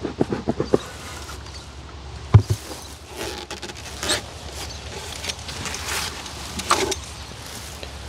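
A quick run of soft pulses, then a sharp wooden thump about two and a half seconds in as the outer cover of a wooden beehive is pried and lifted off. Scraping and handling noises follow, with wind rumbling on the microphone.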